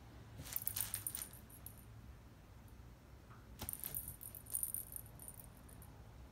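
A cat playing at a pop-up fabric cat tunnel with a dangling toy, making a light jingling rattle in two bursts: one about half a second in and another from about three and a half seconds in.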